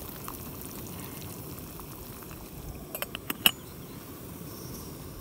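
Meva Spark canister gas stove burner running with a steady low roar under a pot of boiling water. About three seconds in, a quick run of sharp metal clinks as the stainless steel lid is set on the pot, the last one loudest.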